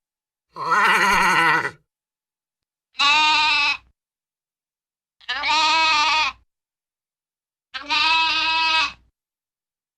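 Four cartoon sheep bleat sound effects, each about a second long with a wavering tremble, played one after another with silence between them; the first is lower-pitched than the other three.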